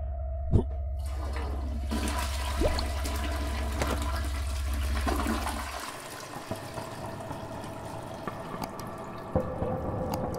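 Toilet flushing: a click, then rushing water that thins to a trickle about six seconds in, with a low hum underneath that stops at the same moment.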